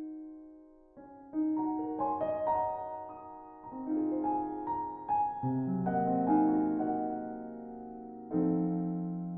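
Background solo piano music: slow phrases of single struck notes and chords, each left to ring and fade.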